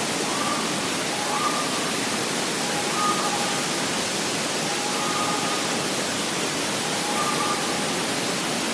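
Waterfall close by, a steady rush of falling water plunging into a pool.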